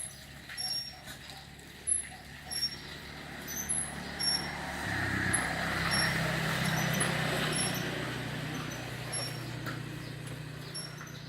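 A motor vehicle passing by, its engine hum building to a peak about six seconds in and then slowly fading. Short high chirps repeat throughout.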